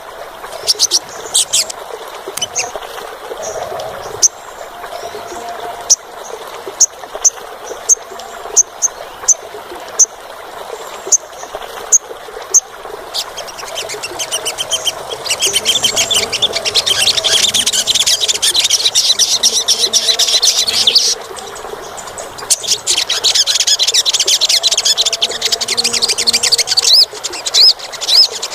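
Olive-backed sunbird calling: sharp, high chips about twice a second, then, from about halfway in, a fast, high-pitched trilling song that stops briefly and resumes.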